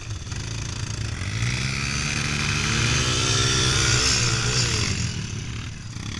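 ATV (quad bike) engine revving up as it pulls away across sand, its pitch rising for a few seconds and then dropping off about five seconds in, with wind and sand hiss over it.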